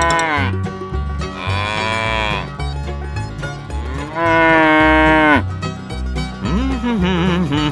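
Cattle mooing three times, long calls that rise and fall in pitch, the third the longest and loudest, over country-style background music with a steady beat.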